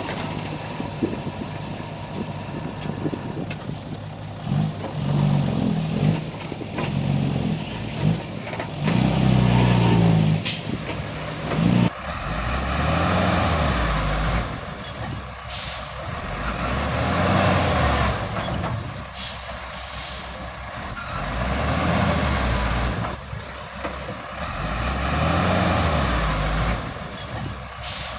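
Komatsu D31P bulldozer's diesel engine working under load, its pitch rising and falling in a cycle about every four to five seconds in the second half, with sharp metallic clanks now and then.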